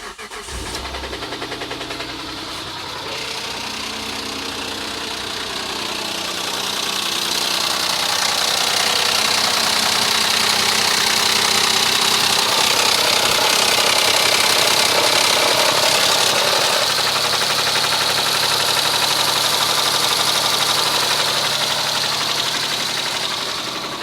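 2007 Mitsubishi Endeavor's 3.8-litre V6 starting up and idling with a rapid metallic knocking and pinging. It grows louder about six seconds in and eases near the end. It could be a rod knock or a failing hydraulic timing belt tensioner, and the owner hopes it is the tensioner.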